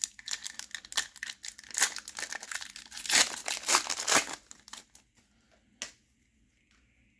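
Foil trading card pack wrapper being torn open and crinkled, loudest about three to four seconds in and dying away after about five seconds, with one sharp click near the end.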